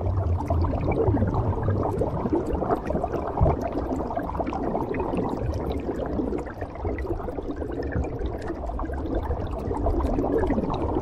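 Exhaled air bubbling from a scuba diver's regulator underwater: a steady gurgling crackle of many small bubbles.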